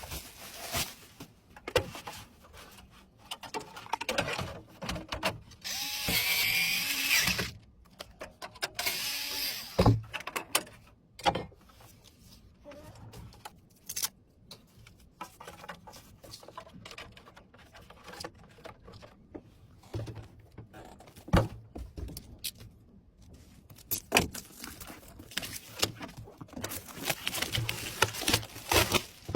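Small power tool whirring in two short runs of about a second and a half each, with clicks and knocks of hardware being handled around them. Fits an electric screwdriver driving screws during PC assembly.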